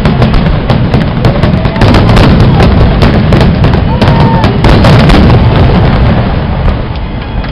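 Aerial fireworks shells bursting in a dense barrage: many sharp reports and crackles close together over a continuous low rumble, easing slightly near the end.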